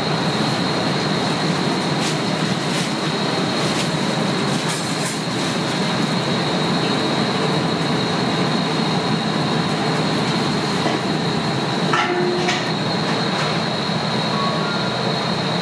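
Steady rushing machine noise with a constant high-pitched whine, and a few light clicks and taps, several of them about twelve seconds in.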